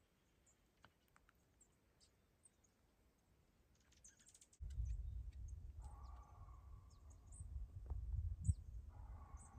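Faint short high chirps of small birds. About halfway through, a low rumble starts suddenly on the microphone, with two faint drawn-out tonal calls from a distant animal a few seconds apart.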